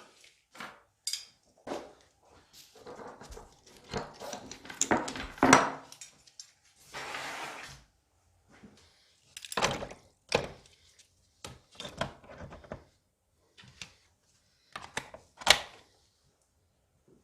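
Workshop handling sounds: irregular knocks, clunks and clatters of parts and tools being picked up and set down on a bench, with a short hiss about seven seconds in. The sharpest knocks come about five and a half and fifteen and a half seconds in.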